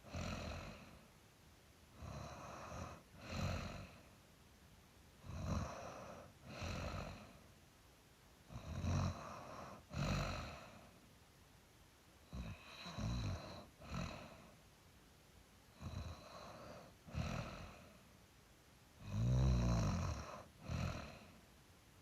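A sleeping person snoring, a rough snore on both the breath in and the breath out, about one breath every three and a half seconds. The loudest snore comes near the end.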